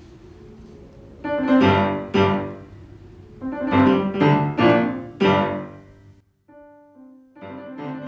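Piano music: a faint low held note, then loud struck chords in two clusters, about three and then about five, followed by softer single notes near the end.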